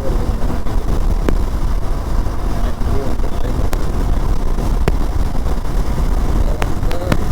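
Motorcycle on the move at road speed: heavy wind and road noise rushing over the microphone, with the engine underneath and a few sharp clicks.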